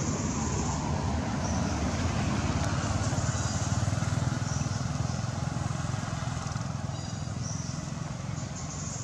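Low engine rumble of a passing motor vehicle, swelling in the first few seconds and slowly fading, with short high chirps recurring every second or two.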